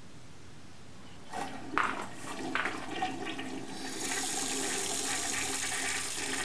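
Toilet flushing: a few knocks and splashes about a second in, then water rushing into the bowl, louder from about four seconds, cutting off suddenly at the end.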